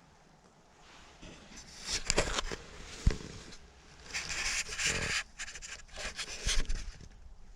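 Rustling and scraping close to the microphone, coming in irregular bursts for several seconds, with one sharp knock about three seconds in.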